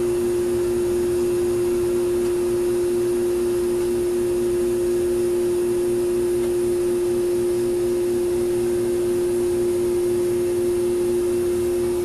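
A steady hum at one low pitch, with fainter tones above and below it, holding even throughout.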